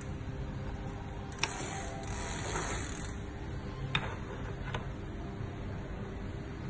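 Bicycle platform pedal being threaded by hand into a crank arm: a few light clicks of metal on metal and a short scraping rasp about two seconds in, over a steady low hum.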